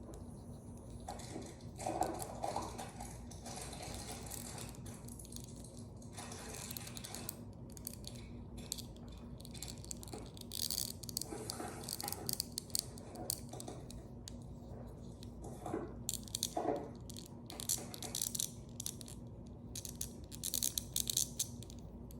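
Small plastic toys and packaging being handled, with scattered clicks, light rattles and rustles over a faint steady hum.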